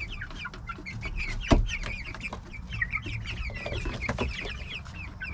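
A flock of young chickens calling, many short high falling peeps and clucks overlapping without a break. One sharp knock sounds about a second and a half in.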